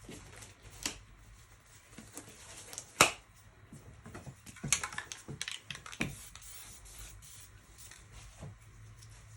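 Scattered clicks and knocks of objects being handled, with one sharp click about three seconds in and a few more knocks a couple of seconds later.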